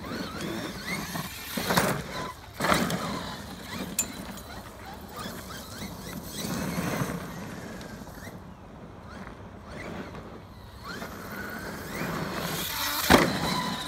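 Cen Reeper 1/7-scale RC monster truck driving over dirt jumps: its electric motor whine rises and falls with the throttle while the tyres scrabble on dry dirt. Sharp landing thumps come about two seconds in and again near the end, where the loudest one falls.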